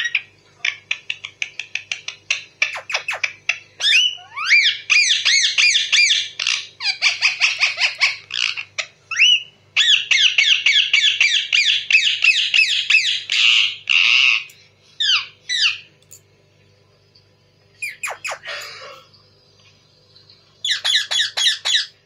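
Rose-ringed parakeet calling: quick runs of sharp chirps, then long stretches of loud chattering squawks with fast rising notes, a pause of about two seconds, and a last run of calls near the end.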